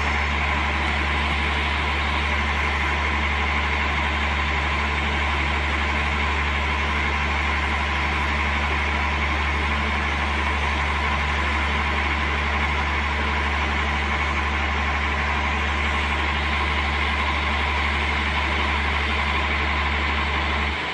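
Diesel engine of a truck-mounted concrete boom pump running steadily: a deep hum with a steady higher whine over it. The deep hum drops out right at the end.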